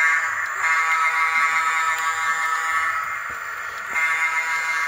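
Model diesel locomotive's onboard sound horn blowing a buzzy chord in blasts: two long ones, then a short one near the end, like a grade-crossing signal.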